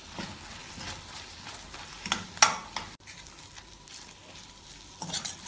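A spatula stirring and scraping spice-coated turnip pieces around a stainless steel kadai, with a few sharp scrapes about two seconds in and a couple more near the end, over a faint sizzle of the masala frying in oil.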